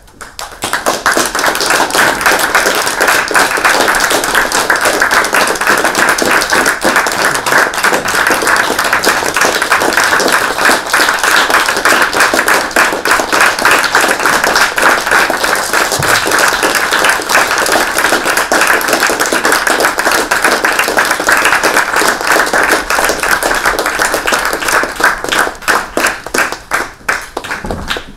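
Audience applauding: the clapping starts suddenly, stays dense and steady, then thins to scattered separate claps near the end and stops.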